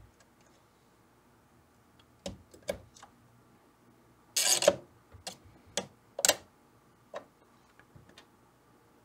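Small clicks and taps of a soldering iron and hand tools against the eyelet board and chassis of a vintage tube amp while resistor leads are desoldered, with one brief louder scrape about four and a half seconds in.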